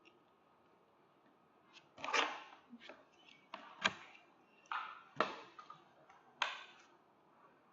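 Several sharp clicks and taps at irregular intervals, in the manner of computer mouse and keyboard input at a desk, starting about two seconds in and stopping a second before the end.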